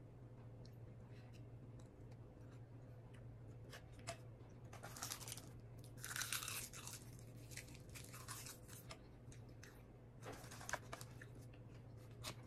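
Close-up chewing and crunching of crisp roasted nori wrapped around baked sushi, in several short bursts, with a few light clicks of a fork in a foil tray.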